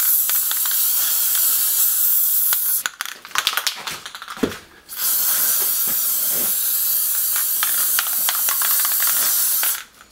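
Aerosol spray can of plastic primer spraying in two long bursts: a steady high hiss, a break of about two seconds with a few scattered clicks, then the hiss again, cutting off just before the end.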